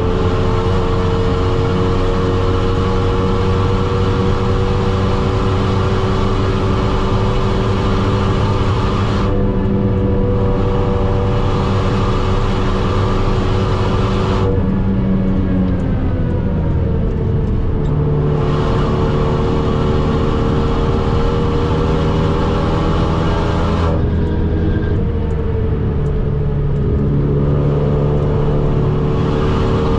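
Renault Mégane R.S. 265's turbocharged 2.0-litre four-cylinder, tuned to about 340 hp, heard from inside the cabin while driving hard at speed. The engine note climbs slowly, falls away about halfway through, then pulls again, with another dip and rise near the end.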